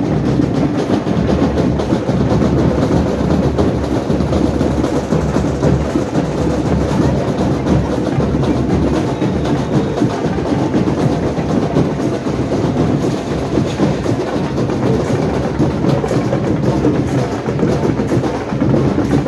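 Carnival street band's drums and percussion playing a steady, dense beat.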